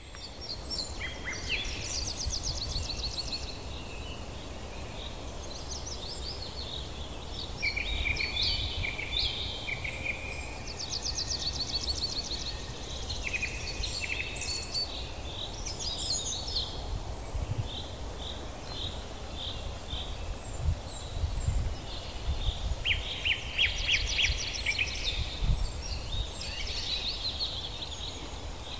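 Several birds singing and calling together, with many short chirps and rapid trills, over a steady low rumble.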